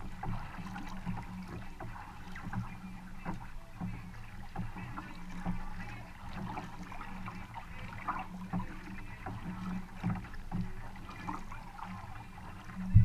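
Kayak paddling: a double-bladed paddle dipping and pulling through the water in a steady rhythm, with water splashing and dripping off the blades and running along the hull. A single loud thump near the end.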